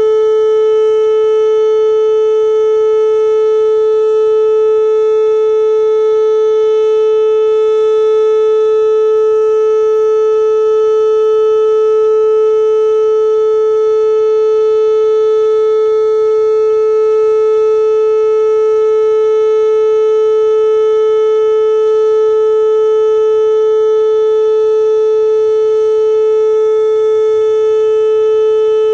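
Whelen WPS-2810 electronic outdoor warning siren sounding its tornado alert during a test: one loud, steady tone held at a single pitch, with no rise or fall.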